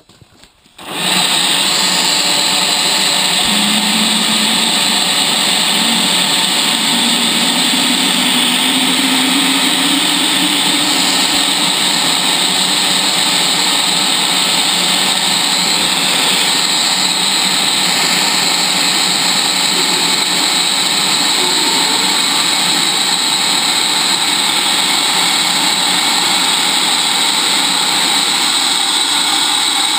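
Handheld leaf blower blowing into the intake of a homemade turbojet made from a small turbocharger, spinning it up for a start. A loud, steady roar that comes on suddenly about a second in.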